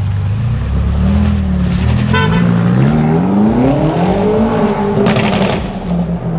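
BMW F90 M5 Competition's twin-turbo V8, with its secondary catalysts and centre resonator box deleted, accelerating: the exhaust note rises in pitch over about two seconds, then levels off.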